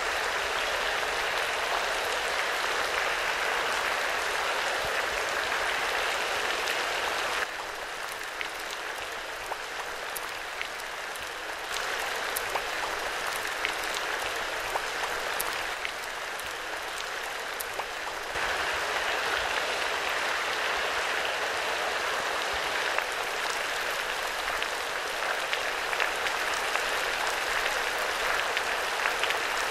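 Water drops falling from an overhead grid of drip emitters into a shallow pool, a dense steady patter like rain on water with a few sharper single drips. The patter goes quieter for about ten seconds from around a quarter of the way in, then picks up again.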